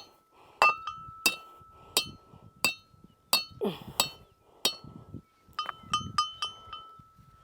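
Repeated metal-on-metal hammer strikes, about one every two-thirds of a second, each leaving a ringing metallic tone, then a quicker run of lighter taps near the end: a steel target stake or mount being driven in while setting up steel targets.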